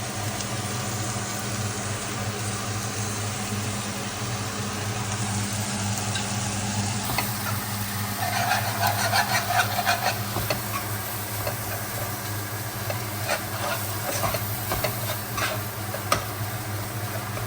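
Vegetables sizzling as they fry in a pan, stirred with a utensil; from about eight seconds in there are frequent clicks and scrapes of the utensil against the pan, over a steady low hum.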